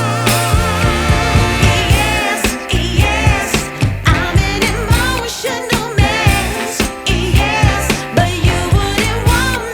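Background pop song with a steady beat and a singing voice.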